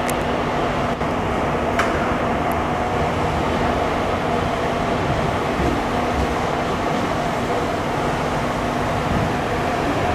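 Steady rumble and electrical hum of Japanese electric commuter trains (JR 211 and 313 series) at a station platform, with a steady tone that stops near the end.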